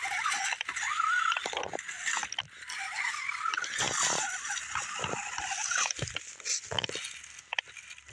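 Radio-controlled rock crawler's electric motor and gear drive whining, its pitch rising and falling with the throttle, with sharp knocks of the truck on rocks several times.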